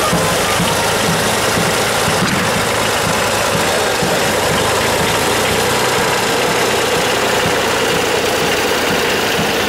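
Vintage tractor engines running steadily at slow parade pace, the nearest being an orange Renault tractor with a low, even knocking beat as it passes close by.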